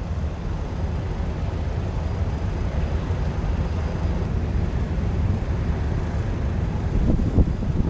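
Low, steady rumble of the passing cruise ship's Sulzer 9ZH40/48 diesel engines, with wind buffeting the microphone in a few gusts near the end.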